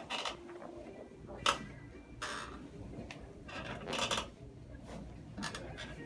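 Chiropractic adjustment of the upper back with the patient lying face up, arms crossed: a sharp pop about one and a half seconds in as the spinal joints cavitate under the thrust, with softer rustling and smaller clicks from the body and table before and after.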